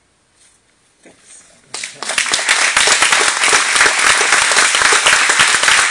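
Audience applause breaking out about two seconds in, after a short hush: many hands clapping at once, loud and steady.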